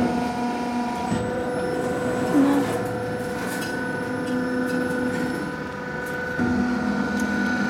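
A colour-steel glazed tile roll forming machine running, rolling steel sheet into a tile profile. Its drive and rollers give a steady hum with several held tones, and a lower tone drops out and comes back a few times.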